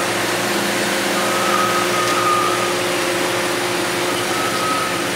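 A steady mechanical hum, like an engine idling, over an even hiss, with a faint high whine that comes and goes twice.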